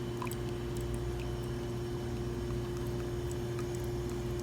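Slayer espresso machine's pump running with a steady hum and a held tone while water flows through the group head at the pre-brew flow rate.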